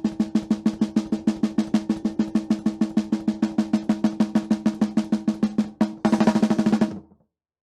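Recorded bottom-snare-mic track of a snare drum, its hits evened out by a drum leveler set to 100%: a fast blast-beat stream of about eight even hits a second with a ringing tone. About six seconds in it breaks into a quick roll, then stops suddenly.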